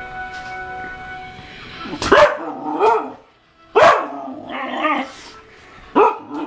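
A dog barking loudly at the TV, in about three bursts starting two seconds in. Each bark trails into a short, wavering yowl. Steady TV sound plays quietly under the first part.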